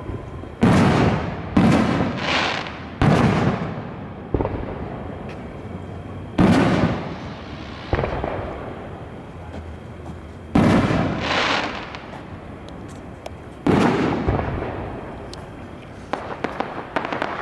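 Aerial firework shells bursting overhead in a series of booms, several in quick succession in the first few seconds, then spaced out. Each boom trails off in a rolling echo, and light crackling comes near the end.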